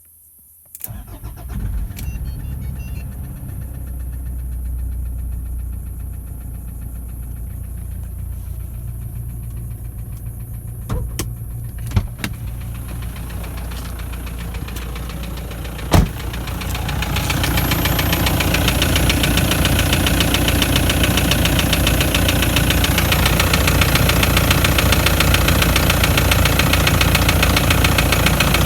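Toyota Land Cruiser Prado 120's 1KD-FTV four-cylinder turbodiesel starts up about a second in and idles with a knock that new injectors have not cured. A few sharp clicks come in the middle. From about two-thirds of the way through, the engine is louder and fuller, with an even rapid clatter.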